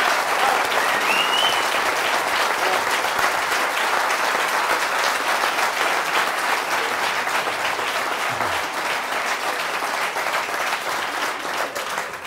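A large seated audience applauding, a steady dense clapping that starts to die away near the end.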